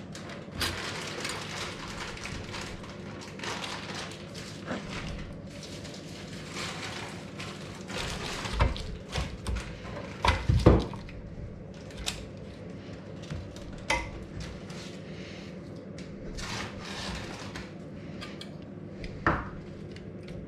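Clinks and knocks of dishes and cutlery being handled, a cluster of louder knocks about halfway through, over a steady low hum.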